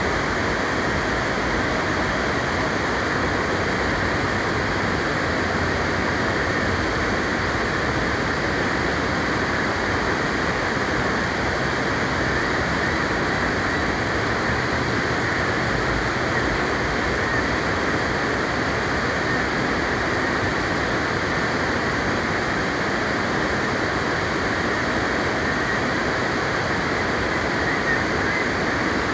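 River water rushing over a rock ledge in white-water rapids: a steady rushing noise that holds even throughout.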